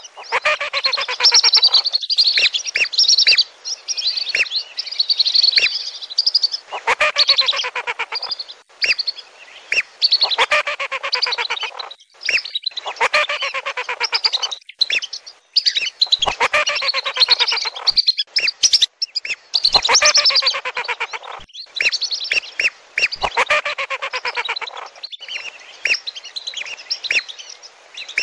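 A flock of whistling ducks (lesser and wandering whistling ducks) calling: dense, overlapping high whistles in repeated bouts, with brief breaks between them.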